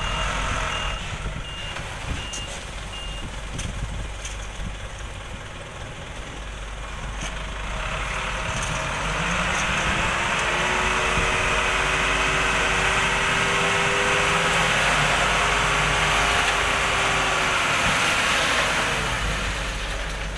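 Isuzu Elf dump truck's diesel engine with its reversing alarm beeping about every three-quarters of a second for the first few seconds. From about 8 s the engine revs up and holds high to drive the hydraulic tipper raising the sand-laden bed, then eases off near the end.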